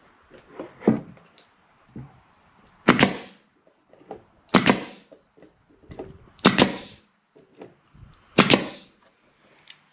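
Finish nail gun firing four times, about two seconds apart, each a sharp crack with a short hiss, tacking plywood sides together.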